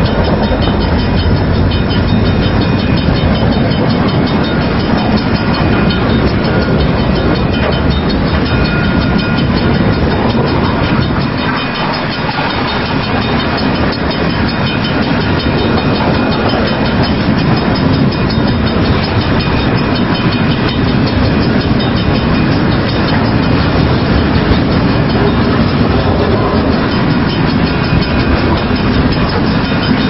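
Freight train passing at close range: boxcars on steel wheels rolling steadily over the rails, a loud, continuous rumble and rattle.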